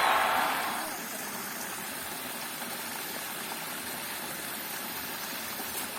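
River water flowing steadily. A louder sound fades out over the first second.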